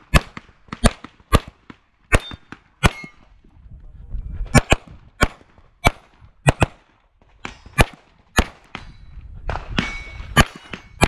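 Rapid pistol fire from a 9mm major Open-division competition pistol, roughly fifteen to twenty shots in uneven groups, some as quick doubles, with short pauses between groups. A few shots are followed by a brief metallic ring, as of steel targets being hit.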